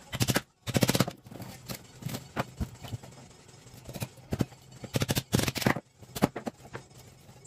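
Large kitchen knife chopping through a milkfish's head and backbone on a plastic cutting board. Sharp knocks and scrapes come in irregular groups, with the densest run about five seconds in.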